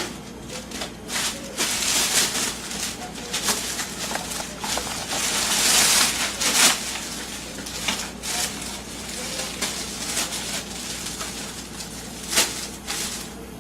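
Irregular rustling, scraping and knocking of things being handled, with sharper knocks around the middle and near the end, over a steady low hum.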